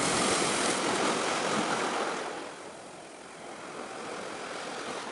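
Sea waves washing in, with wind on the microphone. A louder wash lasts about the first two seconds, then eases to a steady lower hiss.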